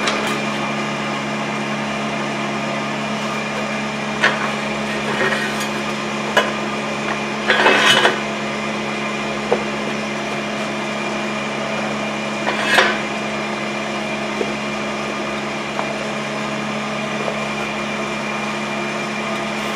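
Steady machine hum throughout, with scattered metal knocks and clanks from a floor jack and a steel bar being worked against a heavy milling machine's base. There is a quick run of clanks near the middle of the first half and the loudest single knock about two-thirds of the way through.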